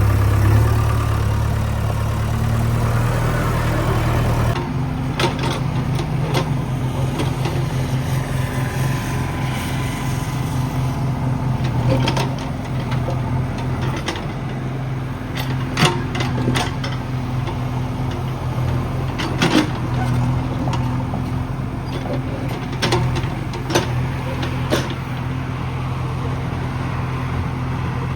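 JCB 3DX backhoe loader's diesel engine running steadily, its note changing about four and a half seconds in. Several sharp knocks sound now and then over it.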